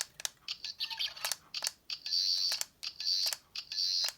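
Toy 13th Doctor sonic screwdriver playing its electronic sound effect in several short high-pitched buzzing bursts, mixed with repeated clicks of its buttons being pressed.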